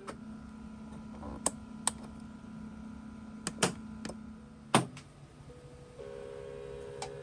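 Small electric motor drive of a model railway indexing turntable humming, with sharp mechanical clicks from control-panel push-buttons and the solenoid latch, the loudest click about two-thirds of the way through. The hum then stops, and a higher hum starts near the end as the deck begins to turn.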